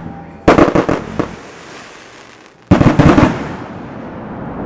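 Consumer aerial fireworks bursting overhead: a quick cluster of bangs about half a second in and another near three seconds, each trailing off in echo.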